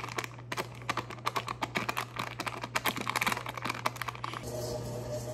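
Butter's paper wrapper crinkling and crackling in quick little clicks as a stick of butter is squeezed out of it into a metal mixing bowl. About four seconds in the crinkling stops and a steady hum with a faint tone takes over.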